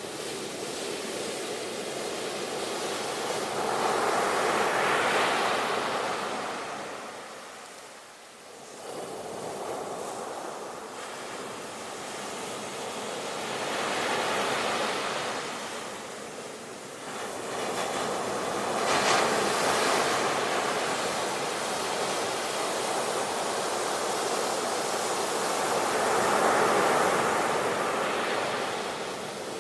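Sea waves breaking and washing on the shore, the surf swelling and fading in four slow surges with a brief lull between the first two.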